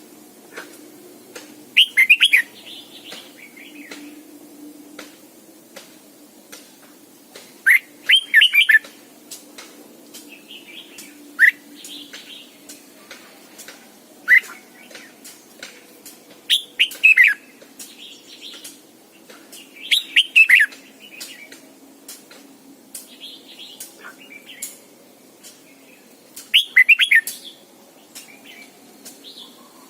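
Red-whiskered bulbul singing: about seven short, loud phrases of quick bending whistled notes spread a few seconds apart, with frequent faint clicks between them.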